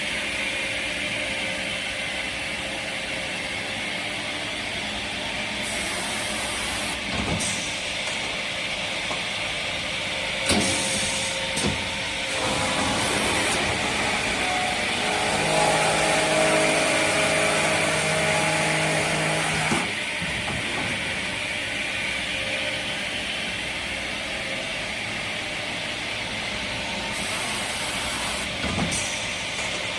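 MABA 4000 board edger, a circular rip saw with an 11 kW main motor, running while it works boards: a steady machine noise with a few knocks and several short hisses of air. A louder pitched hum comes in at about 12 seconds and stops at about 20 seconds.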